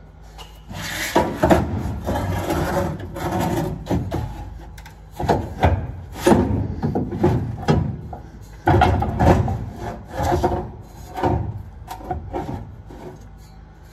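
Rusty steel driveshaft being worked out from under a car by hand, scraping and knocking against the underside in a string of uneven strokes.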